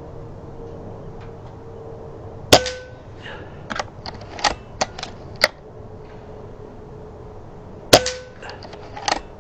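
Two shots from a Reximex Regime PCP air rifle, regulated at 90 bar with a newly fitted HUMA regulator, about five seconds apart. Each is a sharp crack with a brief ring after it, and a few quieter clicks fall between the shots.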